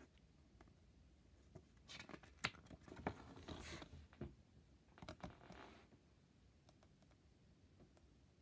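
Faint rustling of a paper DVD booklet being opened and its pages handled: two short spells, about two seconds in and about five seconds in, with a few small clicks among them.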